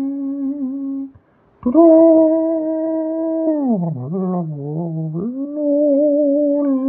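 A wordless voice humming long held notes, with a short break about a second in and a slide down in pitch midway before it rises and holds again.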